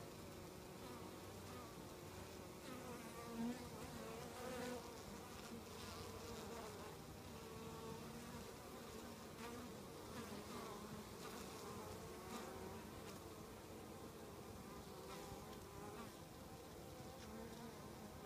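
Honeybee foragers buzzing as they fly in and land at a hive entrance: several wingbeat hums wavering in pitch, with a brief louder buzz about three and a half seconds in and another just under five seconds.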